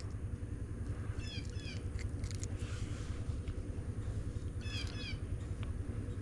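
Two short runs of quick, high, falling chirps from an animal, about a second in and again near the end, over a steady low hum.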